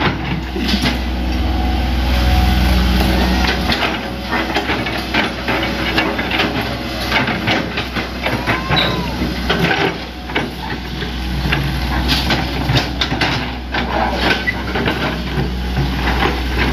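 Hitachi ZX100 excavator's diesel engine running steadily with a deep hum, with repeated clanks and knocks from the machine at work.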